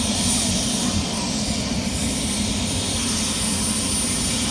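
Bell 206-style single-turbine helicopter running close by with its main rotor turning: a steady low rotor rumble under a high, steady turbine whine and rushing air.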